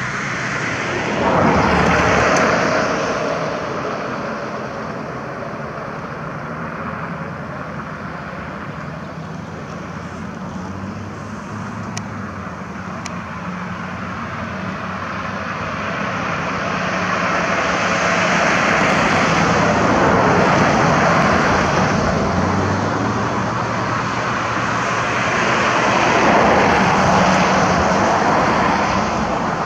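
Engine noise of passing motor traffic: a continuous low hum with passes that swell and fade, loudest about two seconds in, through the middle and again near the end.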